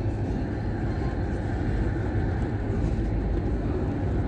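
Steady road and engine noise heard inside the cabin of a moving car.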